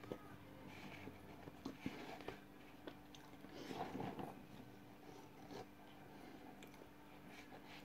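Faint mouth noises of dry cornflour (cornstarch) being sucked through a straw and chewed: scattered soft clicks and smacks with a few short sucks.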